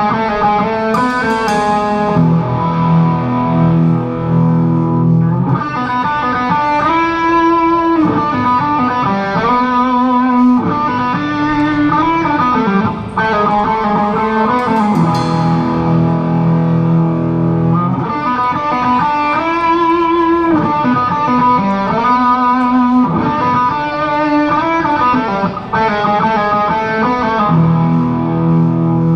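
A live band plays an instrumental passage with electric guitars to the fore, heard from the stage. The same phrase repeats about every eight seconds, with a brief high crash about a second in and again about halfway through.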